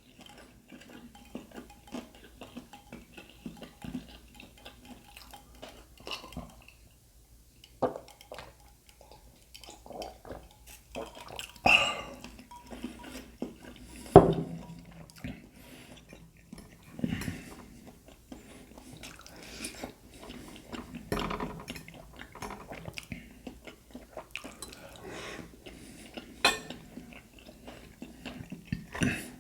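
Cutlery clinking and scraping on a plate amid chewing: scattered short clicks and knocks, a few of them louder.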